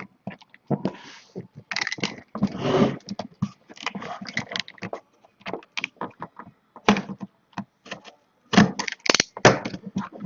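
A sealed cardboard box and its plastic wrapping being torn open and handled by hand: irregular scraping, tearing and rustling with sharp clicks.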